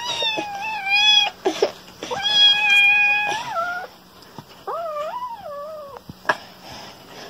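A small kitten mewing: three long, high-pitched calls, each lasting about a second, with short gaps between.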